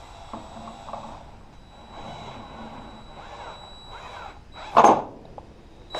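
Light handling knocks and clicks as a cordless drill is set against a PVC pipe cap. About five seconds in comes one short, loud burst of the drill as the bit bites into the plastic.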